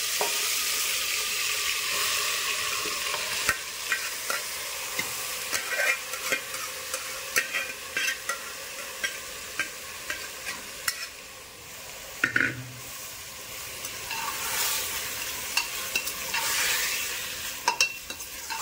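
Minced mutton with raw onions sizzling in hot oil in a pressure cooker, loudest at first, while a metal spoon stirs it, scraping and clicking against the pot.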